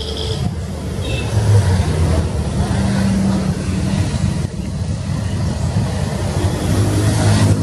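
Steady low engine rumble, growing a little louder near the end.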